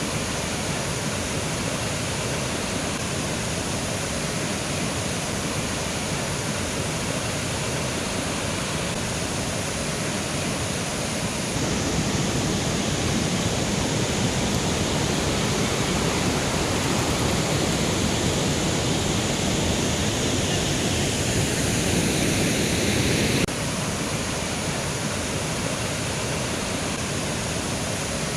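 Mountain river flowing: a steady rush of water. It gets suddenly louder about twelve seconds in and drops back just as suddenly about twelve seconds later.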